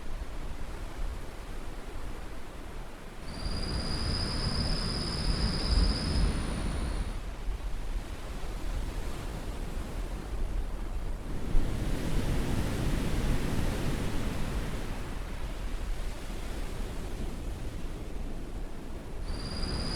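Caribbean surf washing on a beach, swelling and easing every few seconds. A steady high pure tone sounds for about four seconds a few seconds in and comes back at the very end, spaced like a cue for the four-count phases of box breathing.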